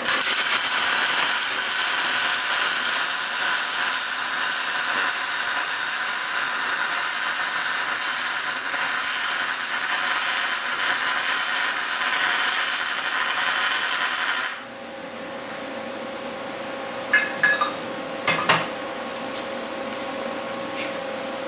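Electric welding arc running continuously for about fourteen seconds as a bead of filler weld is laid into a beveled groove between two steel plates of a leaf-spring perch pad, then cutting off suddenly. After it a steady hum remains, with a few light metal clinks.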